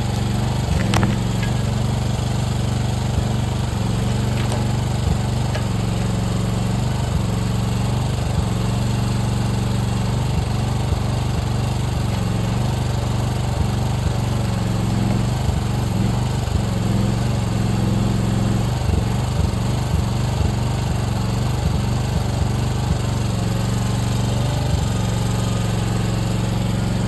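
Huayee HY14C mini excavator's small engine running steadily, with scattered short knocks over it.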